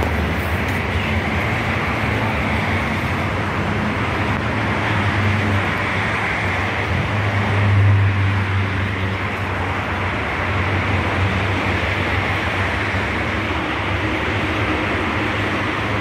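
Steady outdoor urban background noise with a low rumble, swelling briefly about eight seconds in.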